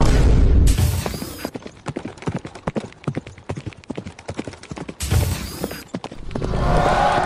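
Cartoon sound effects: a loud burst at the start, then a quick, irregular run of tapping footsteps for an animal walking and running, a second loud burst about five seconds in, and a swell near the end.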